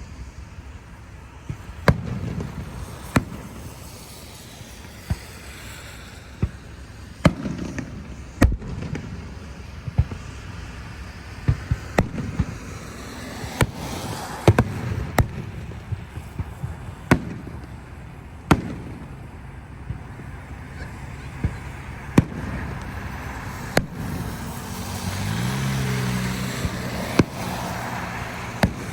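Fireworks going off: a string of sharp bangs at irregular intervals, a second or two apart, each followed by a low rumble, over a steady background hiss.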